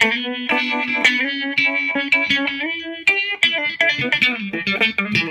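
Clean electric guitar, a Fender Stratocaster with Fralin pickups, played through a Uni-Vibe-style rotary/vibe pedal turned up stronger into a Fender '65 Deluxe Reverb reissue amp with a little reverb. It plays a quick melodic line of picked single notes, several a second.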